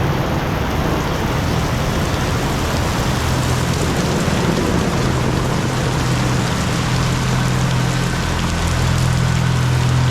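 Heavy rain falling steadily, with the low hum of vehicle engines running underneath that grows a little louder near the end.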